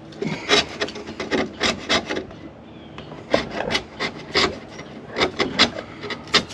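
Small metal hand scraper rasping along the wooden rabbet of an old window sash, clearing out old glazing putty, in quick repeated strokes about three a second, with a pause of about a second two seconds in.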